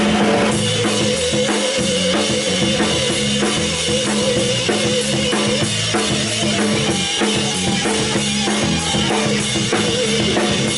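Live rock band playing an instrumental stretch after the last sung line: a drum kit keeping a steady beat with bass drum and snare under sustained bass and electric guitar.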